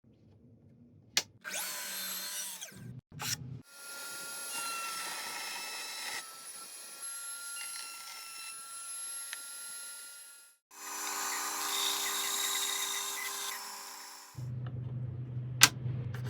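Woodworking power tools running and cutting wood in several short bursts, each starting and stopping abruptly, with a steady whine through the longest run and a few sharp knocks.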